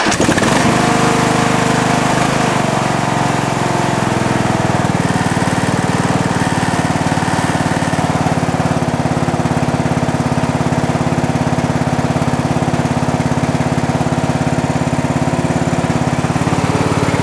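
Craftsman lawn tractor engine running steadily just after a cold start.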